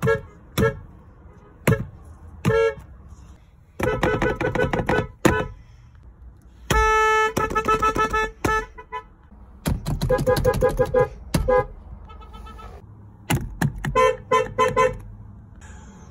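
Car horns honking: short bursts of quick repeated toots, with one long steady blast about seven seconds in.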